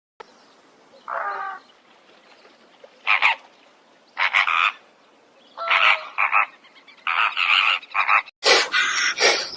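An animal croaking: short, rasping calls at first a second or more apart, then coming quickly one after another near the end.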